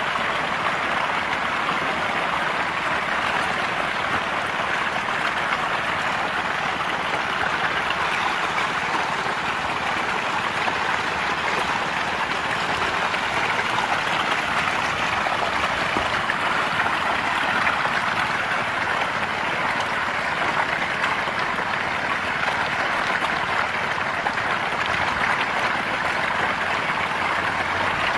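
A packed school of fish thrashing and splashing at the water's surface in a feeding frenzy over feed thrown into the pond: dense, continuous splashing that keeps up without let-up.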